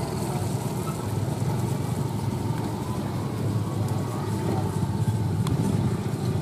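Street traffic: motorcycles and cars running past on the road, a steady engine-and-tyre rumble.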